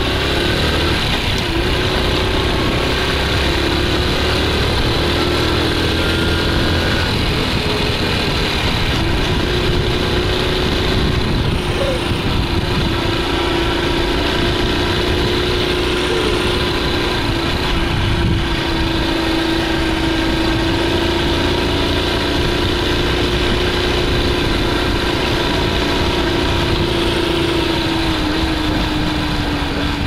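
Honda Super Cub C50's small four-stroke single-cylinder engine running steadily as the bike cruises, with wind rumble on the microphone; the engine note eases slightly near the end.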